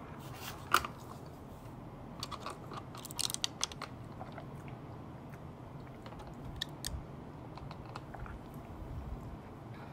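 Faint mouth sounds of a person tasting a drink and eating, with scattered small clicks and taps. The clicks cluster around two to four seconds in.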